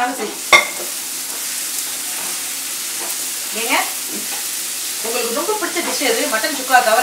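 Onion, tomato and whole spices sizzling in hot oil in a pan while a ladle stirs them, as the cooked mutton is worked in for mutton sukka. A sharp tap about half a second in.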